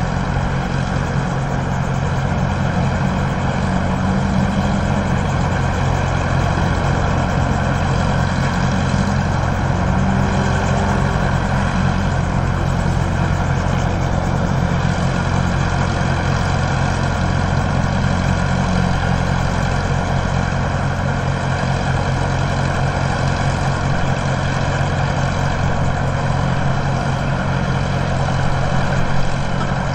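Heavy engine idling steadily: a constant low hum with steady overtones and no change in speed.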